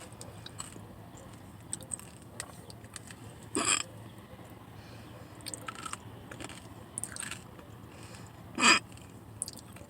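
A person chewing a crunchy granola-topped yogurt parfait, with small crunches throughout. Two loud, short hiccups cut in, about five seconds apart.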